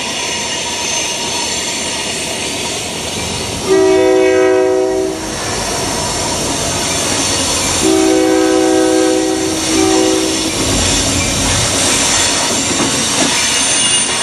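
Patched ex-Cotton Belt EMD GP60 leading a freight train, sounding its Airchime K5HL five-chime horn: one long blast about four seconds in, then a long and a short blast around eight to ten seconds. Under the horn, diesel locomotives and wheels run steadily as the train comes up close.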